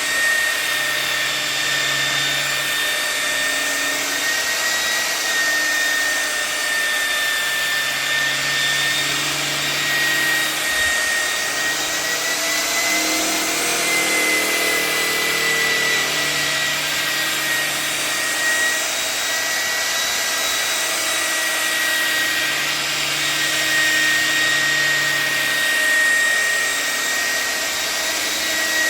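Electric paint polisher running steadily on a car's paint, its motor whine wavering slightly in pitch. It is cutting more aggressively after polish alone failed to bring up a shine on the wet-sanded paint.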